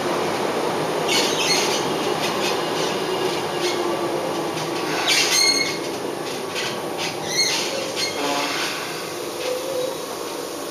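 Tokyu 8590 series electric train heard from inside a passenger car: steady wheel and running rumble in the tunnel, with brief high squeals about five and seven seconds in. The running noise grows quieter toward the end as the train slows for the station.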